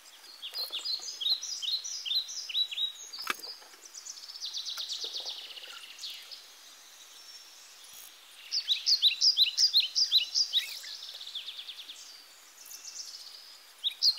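A songbird singing high, fast phrases of short down-slurred notes, about five a second, with a quicker trill between phrases and quiet gaps. There is a single sharp click about three seconds in.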